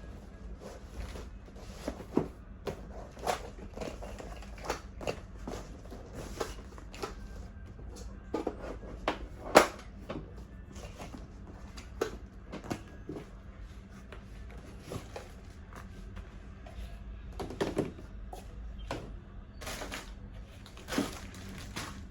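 Irregular clicks and knocks of baby high chair parts being handled and fitted together during assembly, with one sharper knock about halfway through.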